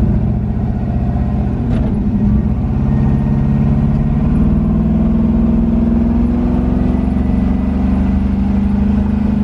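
A 6.0-litre LS V8 in a car under way, its note climbing for a second or two about three seconds in, then holding steady at a cruise.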